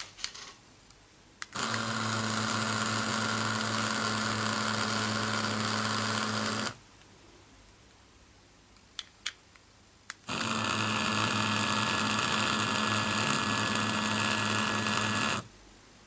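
Z-06 wireless pager receiver set off by the remote, buzzing steadily twice for about five seconds each, with a pause of a few seconds between. A few short clicks come before each buzz.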